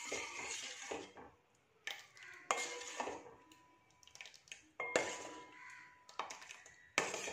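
Steel ladle stirring thick tapioca pudding in a stainless steel pot, scraping and clinking against the pot with several sharp clinks that ring briefly. It is stirred without stopping so the thickening pearls don't stick to the bottom.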